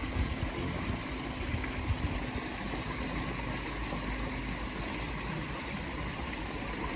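Water pouring over a small concrete weir in an irrigation channel: a steady rushing splash, with a low, uneven rumble beneath it.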